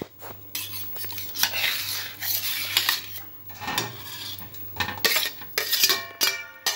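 Flat metal spatula scraping and clinking against stainless-steel plates as cut pieces of set gram-flour batter are pushed and slid from one plate onto another, in a string of irregular scrapes.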